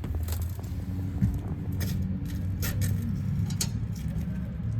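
A steady low rumble, like traffic or an idling engine, with a few sharp clicks and taps about two to four seconds in.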